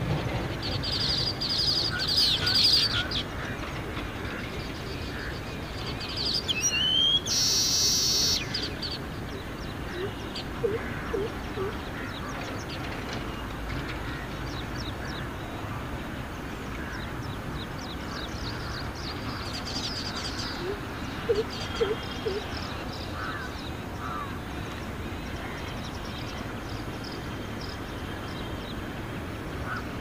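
Baya weaver chattering in bursts, with a loud buzzy wheeze about eight seconds in, over a steady background hiss.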